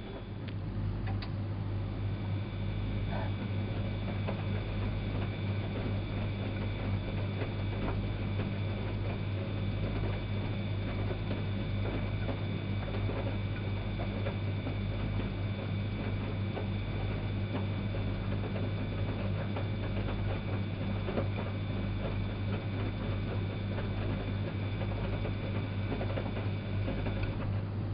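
Elin WM26AAA washing machine running mid-cycle: a steady low motor hum with a high whine over it and a dense patter of small ticks. The whine stops shortly before the end while the hum carries on.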